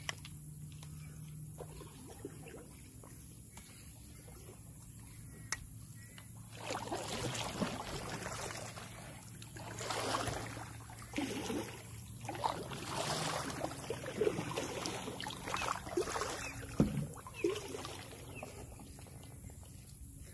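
Kayak paddle strokes, the blades dipping and splashing in the water every second or so, starting about a third of the way in and stopping shortly before the end.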